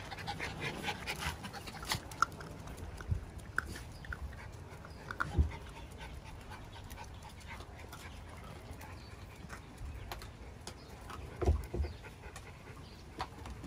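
Miniature schnauzer puppies eating dry kibble and shuffling about, with a dog panting, scattered small clicks and a few short high squeaks. Two dull thumps, about five and a half and eleven and a half seconds in, are the loudest sounds.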